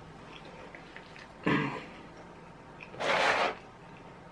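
A man's throat and breath noises while eating: a short throat-clearing sound about a second and a half in, then a half-second forceful breath of air about three seconds in.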